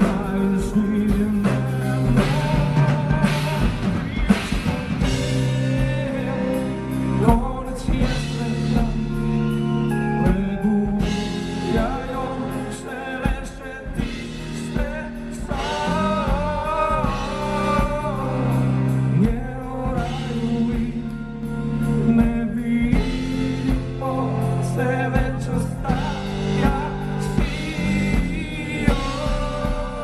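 Rock band playing live in an acoustic arrangement: strummed acoustic guitars and a drum kit, with a man singing lead.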